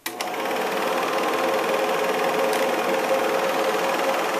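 Hanimex 800 DST Dual 8 film projector switched on with a click and running steadily, its motor and film transport going with 8mm film threaded.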